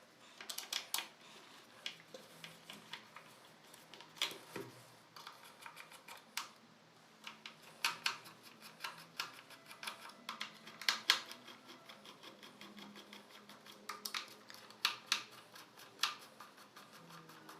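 Irregular small clicks and ticks of screws being undone and handled, as the four screws holding a Bluetooth speaker's driver are taken out.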